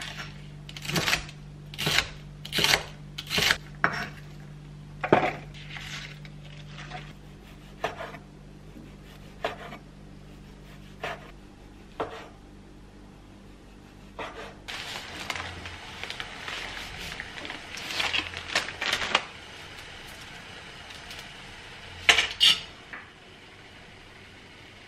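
Kitchen knife chopping bok choy and then mushrooms on a wooden cutting board, in single sharp strikes about one a second, then slower and sparser. Later there is a few seconds of scraping and clatter, and near the end two loud knocks.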